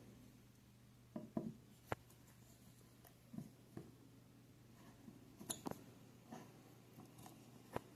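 Faint, scattered clicks and light scrapes of a Gerber Dime multi-tool's small slotted screwdriver being worked in a screw, about eight small ticks spread over several seconds.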